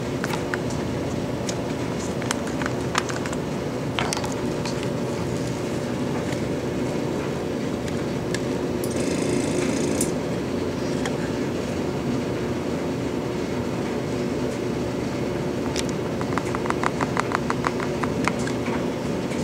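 A machine's steady hum with a couple of fixed tones, with scattered sharp clicks and taps over it. About nine seconds in there is a hiss lasting about a second, and near the end a quick run of about ten clicks a second for a second or two.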